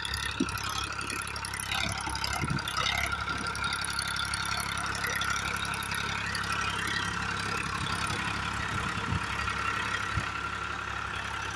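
Powertrac Euro 47 tractor's diesel engine running steadily under load while pulling a nine-tine cultivator through the soil.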